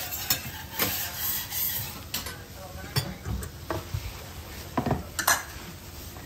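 Flat metal spatula scraping and knocking across a hot iron griddle in short, irregular strokes, over a faint sizzle.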